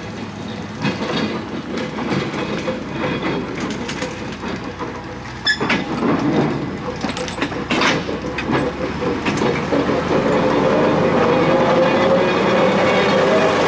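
GE 23-ton locomotive rolling slowly past, its wheels knocking and clacking irregularly over the rail joints. Its running sound grows louder and steadier, with a steady hum, as it comes close in the last few seconds.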